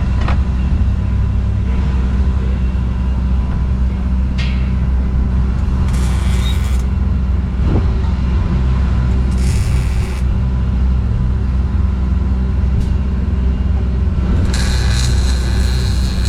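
A steady low engine rumble, with short hissing bursts about six seconds in, at about nine and a half seconds, and again near the end.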